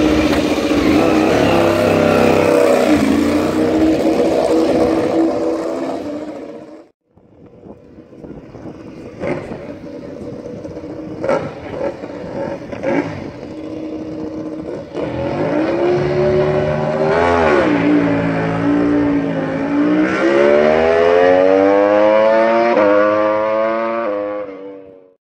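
A Ducati Desmosedici MotoGP bike's V4 engine runs loudly with a stack of engine tones. After a cut about seven seconds in, a racing motorcycle engine is heard with a few sharp cracks, then its pitch climbs, dips briefly and climbs again in a long rise as the bike accelerates.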